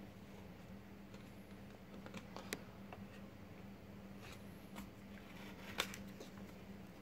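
A scratch-off lottery ticket being handled and slid out from under a clipboard's metal clip: a few faint light clicks and paper rustles, the sharpest about six seconds in, over a steady low hum.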